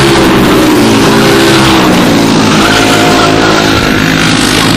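Racing kart's single-cylinder Briggs & Stratton Animal four-stroke engine passing close at race speed, loud, its note falling and then climbing again.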